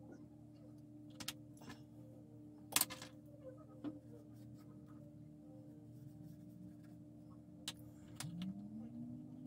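A few sharp clicks and taps from small hobby tools handling a decal sheet, the loudest a little before three seconds in, over a low steady hum. A soft rising tone enters near the end.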